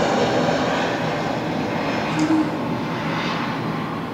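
Distant engine noise, a steady rush that slowly fades.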